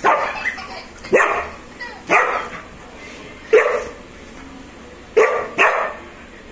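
German Shepherd puppy barking in play at its toy: six short barks about a second apart, the last two in quick succession.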